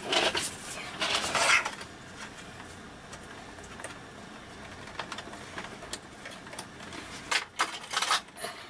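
Hard plastic of a 2006 Ford F-150 instrument cluster being handled and pried at: two loud stretches of rubbing and scraping over the first second and a half, then light rustling and a few sharp clicks near the end as the black plastic cover catches are pushed.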